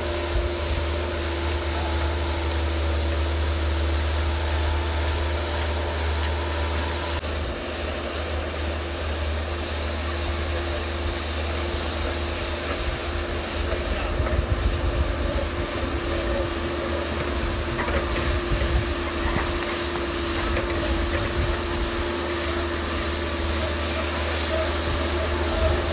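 Skid-steer loader engine running steadily under load while its front-mounted snow blower attachment churns and throws snow: a constant drone with a rushing hiss over it.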